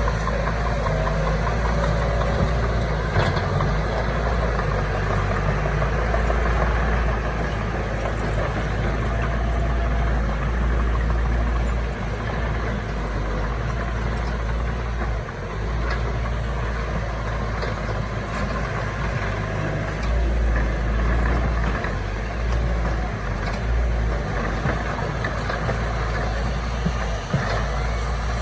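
Diesel engines of heavy earthmoving machinery (a bulldozer and dump trucks) running steadily with a deep low rumble, with a few faint clanks.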